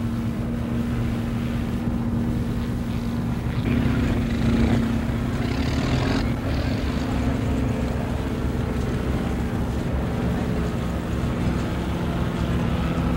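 Heavy vehicle engines running steadily, a low drone with a rumble beneath it. A louder rush of hiss joins in about four seconds in and fades by about seven.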